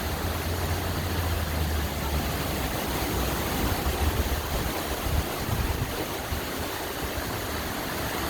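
Tropical-storm wind buffeting the microphone: a steady rushing hiss with a gusty low rumble, heaviest in the first two seconds.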